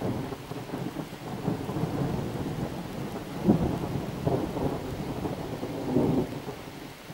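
Thunder rolling for several seconds, with louder peaks about three and a half and six seconds in, then dying away near the end. Rain falls steadily underneath.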